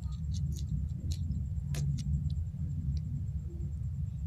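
Steady low background rumble with scattered faint ticks and clicks.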